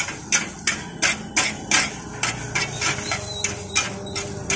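Metal spatula striking and scraping a large flat griddle in a steady rhythm, about three sharp clacks a second, as a heap of fried vermicelli is stirred and chopped.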